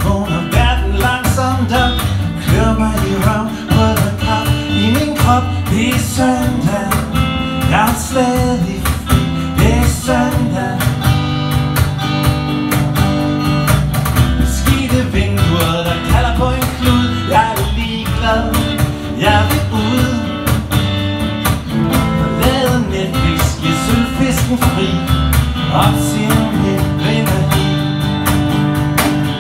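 Live acoustic band: two acoustic guitars strummed over a steady cajon beat.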